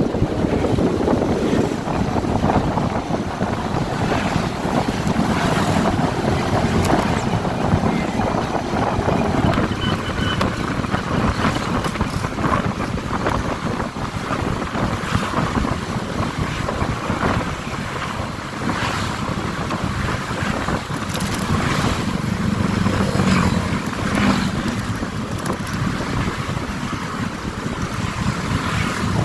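Wind buffeting the microphone while riding a motorcycle, over steady engine and road noise.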